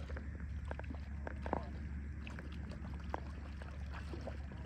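Small scattered water splashes, drips and light knocks over a steady low hum.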